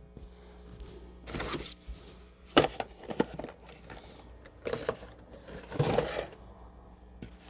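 Small clicks, taps and rattles of laptop parts and tools being handled and set aside, coming irregularly with the sharpest knock about two and a half seconds in. Under them runs a steady low hum from a stereo speaker.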